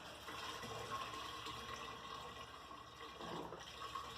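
Liquid accelerant being poured into an empty pump-up garden sprayer tank: a faint, steady pouring sound as the tank fills.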